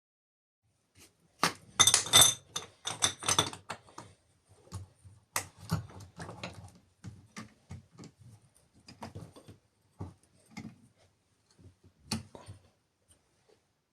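Irregular clicks and light metallic clatter of small tool parts being handled on a workbench, busiest in the first few seconds, then sparser.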